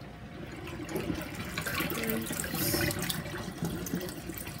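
Meltwater trickling and splashing from a plastic tub of thawing ice into a stainless steel sink, with small irregular clicks and knocks.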